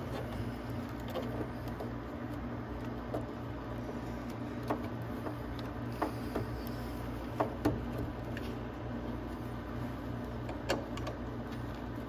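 A few light, irregular metal clicks and knocks as a wrench works the nut of the battery holder on a mini jeep from behind the battery, over a steady low background hum.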